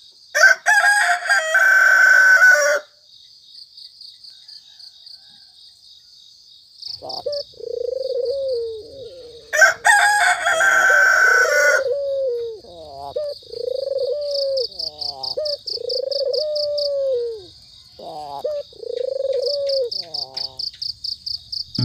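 A rooster crows twice, once near the start and again about ten seconds in, over a steady, pulsing high chirring of insects. From about seven seconds on, another animal repeats a low rising-and-falling call over and over.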